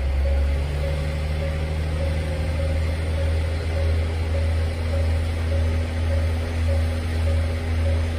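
Diesel engine of a KiHa 48 railcar running stationary, a loud steady low drone; a fainter higher hum comes in about halfway through.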